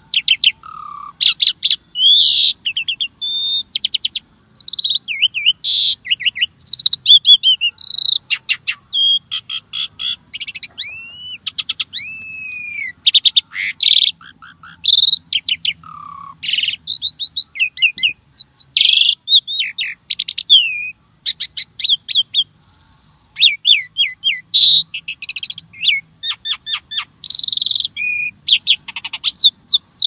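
A jalak (Indonesian starling) singing a fast, varied song of chirps, gliding whistles and rapid rattling clicks, with hardly a pause.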